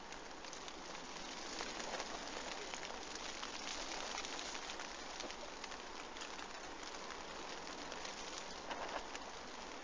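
Steady rain falling, a dense pattering hiss with fine ticks of drops on the bivvy and ground.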